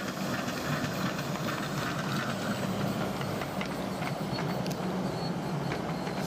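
Miniature railway locomotive running with a steady low hum and some hiss, with a few light clicks in the second half.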